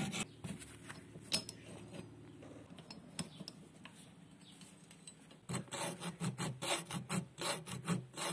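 Steel hand file rasping across the rusty claw of an old nail puller held in a vise, in quick even strokes of about three a second that start about five and a half seconds in. Before that there is only quiet handling noise, with one sharp click.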